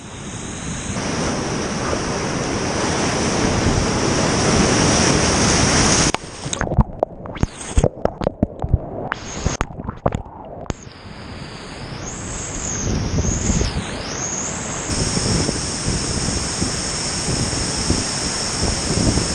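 Roar of whitewater at high flow, with wind buffeting the microphone. About six seconds in, the steady roar breaks into about five seconds of choppy splashes and dropouts, then the rushing water builds back up.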